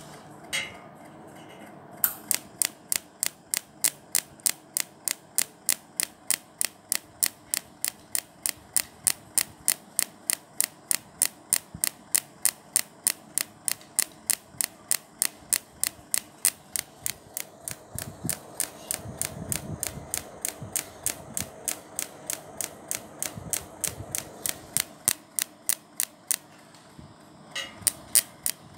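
Sharp, evenly spaced clicks, about three a second, from a welding machine firing in automatic pulse mode, each click one pulse. They stop briefly near the end and start again.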